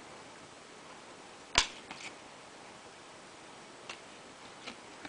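Trading cards being handled and shuffled by hand: a few short clicks and taps of card stock, the sharpest about one and a half seconds in, with fainter ones scattered after.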